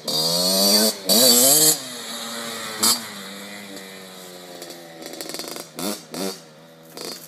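Kawasaki KX60's small two-stroke single-cylinder engine revving up and down as the bike pulls away, then running at a steadier pitch and growing fainter as it rides off.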